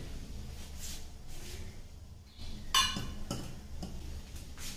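Stainless steel vessels clinking and knocking a few times, the loudest about two and a half seconds in, as cauliflower florets are mixed with flour in a steel bowl and a small steel cup is set down beside it. A low steady hum runs underneath.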